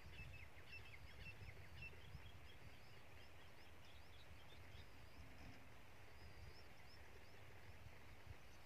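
Near silence: faint outdoor ambience with small birds chirping and twittering in the distance for the first few seconds, over a low wind rumble.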